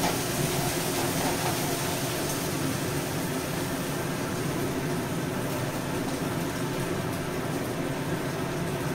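Sliced onions frying in mustard oil in a kadai, a steady sizzle, with a steady low hum underneath.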